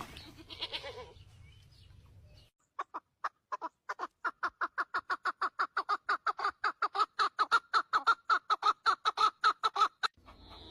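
Chicken clucking in a fast, even run of short calls, about six a second, growing louder, then stopping abruptly.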